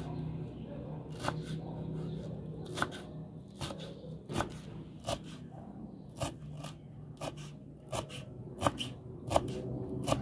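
Chef's knife chopping fresh cilantro on a wooden cutting board: a sharp knock of the blade on the board every second or so, unevenly spaced, with the soft crunch of the leaves and stems being cut.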